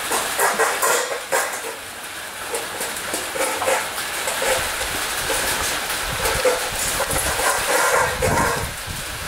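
Cane corsos eating from stainless steel bowls: irregular crunching and clinking of the metal bowls as they feed.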